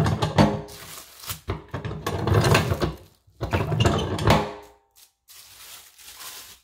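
A metal tortilla press being worked by hand: the plastic sheet around the dough crinkles and the press lid and lever clunk, in several loud bouts over the first four seconds or so, then quieter handling.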